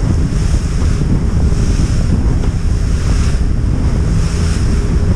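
Wind buffeting the microphone aboard a boat running at speed under outboard power, with water rushing past the hull; steady throughout.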